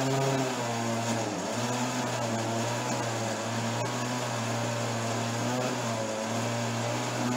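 Countertop glass-jar blender running steadily, pureeing boiled carrots in their cooking water into smooth baby food, with a few brief dips in the motor's hum.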